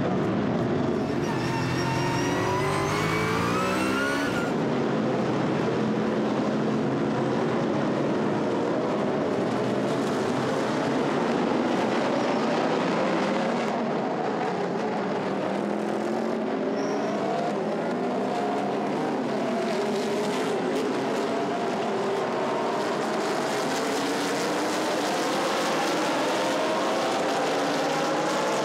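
A field of GT3 race cars at full throttle: many engines sound at once, their notes climbing through the gears and dropping at each shift, over a dense, steady roar.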